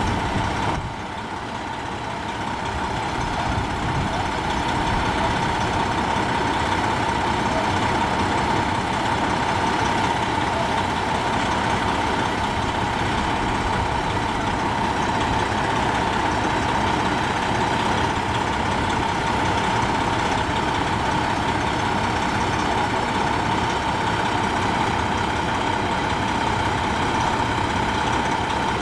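Diesel engine of a loaded semi-trailer truck idling steadily, with a steady high tone running over it. The sound dips briefly about a second in.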